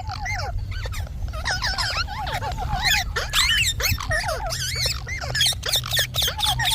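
Ringneck parakeet chattering: a rapid run of short, sliding squawks and whistles, with a quick warbling note at the start and again near the end.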